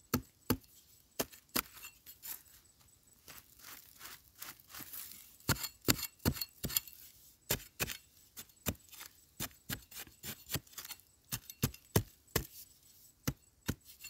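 Metal digging tool striking into earth and grit in a run of sharp, irregular strikes, about two or three a second, while digging out a wild yam tuber.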